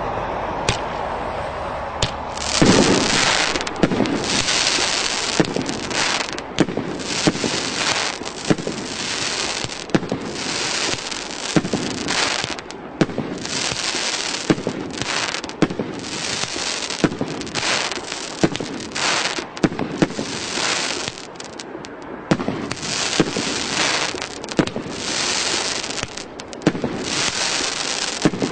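Fireworks cake (CGF-794 battery) firing shot after shot, about one to two a second, starting about two and a half seconds in. Each shot is a sharp bang followed by the burst, some crackling.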